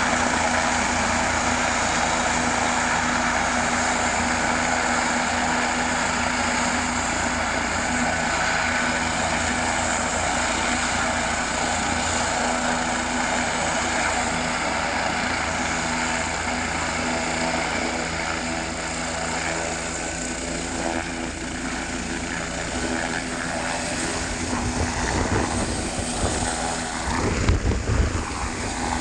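Helicopter running, its engine whine and steady tones over a fast, even beat of the rotor blades. Louder low buffeting comes in near the end.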